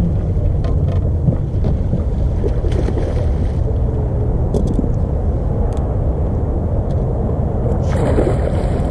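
A hooked bass splashing at the water's surface beside the boat, loudest about eight seconds in, over a steady low rumble.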